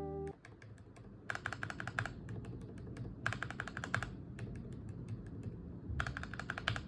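Typing on a Keychron K8 mechanical keyboard with linear switches: three quick runs of keystrokes with scattered single key presses between them.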